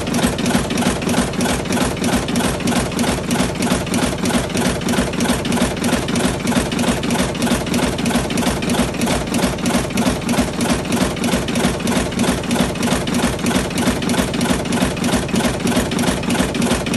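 Automatic electric cigarette-rolling machine running, its mechanism cycling in a fast, even beat over a steady motor hum.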